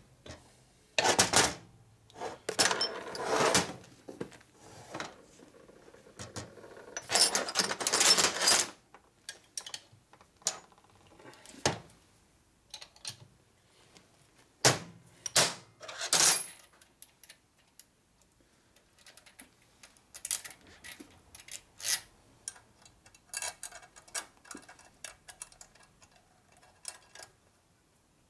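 Metal tools and transmission parts clinking and clattering on a workbench: a string of sharp knocks and clicks with a few longer rattling stretches, busiest in the first nine seconds and sparser after.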